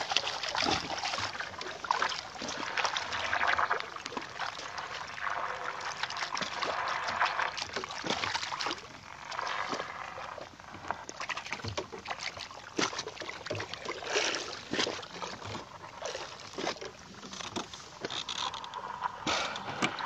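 Sea water sloshing and splashing against a small boat, with scattered short knocks.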